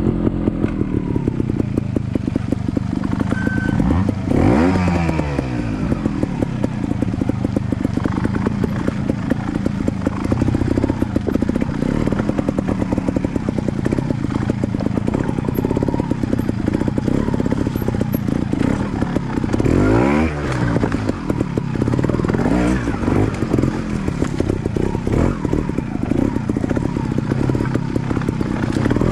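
Trials motorcycle engine running at low throttle through a rocky section, with the revs rising and falling sharply about four seconds in and again about twenty seconds in, and smaller throttle blips between.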